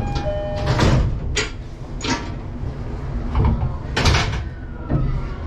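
Commuter train's sliding doors closing: a few short chime tones, then a series of sharp hisses and knocks from the door gear over the car's steady low rumble.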